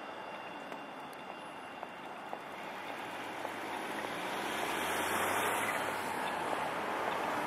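Articulated tram rolling away along street tracks, its running noise blending into steady city traffic. The noise swells again from about four seconds in.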